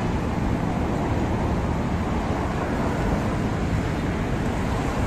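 Steady road traffic noise, an even rush with no single vehicle standing out.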